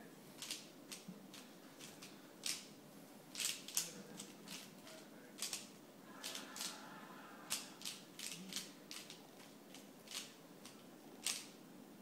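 Dayan ZhanChi 3x3 speed cube being turned by hand, probably scrambled for the next solve: irregular light plastic clicks as its layers snap round, busier about six seconds in, with one sharper click near the end.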